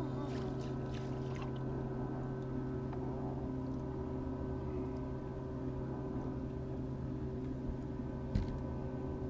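Bow-mounted electric trolling motor running with a steady hum, holding the boat in place. A single sharp knock sounds about eight seconds in.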